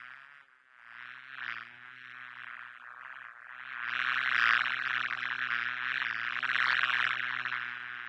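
Honey bees buzzing: a steady, buzzing hum that grows louder about four seconds in.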